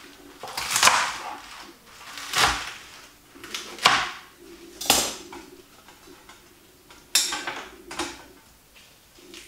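A kitchen knife cutting pak choy on a cutting board: about six sharp knocks and clatters at uneven intervals.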